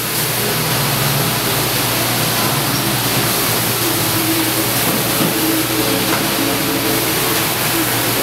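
Steady, loud rushing noise with a faint low hum underneath, typical of ventilation or machinery in a large workshop hall.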